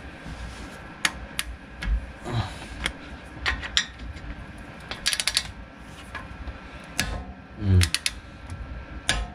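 Hand tools working a brake caliper bolt: a torque wrench and an open-end wrench on the slide pin, giving sharp metal clicks and knocks scattered through, with a quick run of ratchet-like clicks about five seconds in.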